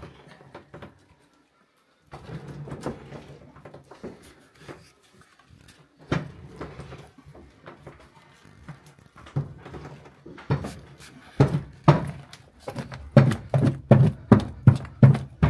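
A paddle beating thick egg-white and sugar walnut halva in a steel bowl: irregular thumps and knocks against the bowl, growing louder and quicker near the end to two or three strokes a second.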